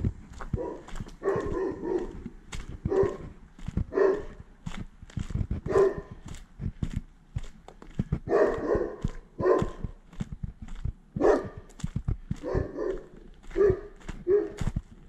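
A dog barking again and again, the barks coming irregularly every second or two, over low thumps and rumble.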